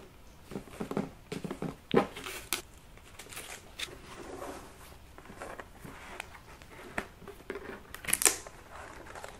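A cardboard gift box and its ribbon being handled: the ribbon is untied and slid off, with rustling, light taps and clicks. There is a sharper swishing stroke about two seconds in and another near the end.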